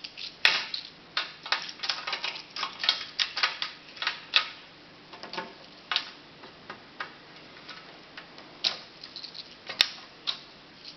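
Magnetic building-block squares clicking and clacking as they are snapped together edge to edge into a row: many short, irregular clicks, busiest in the first half.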